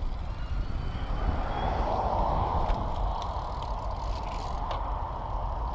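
Wind buffeting a bicycle-mounted camera's microphone along with road-bike tyre noise while riding, swelling a little about two seconds in, with a few light clicks.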